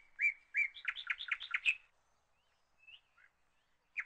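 A small bird chirping: a quick run of short, high chirps in the first two seconds, then a few fainter calls.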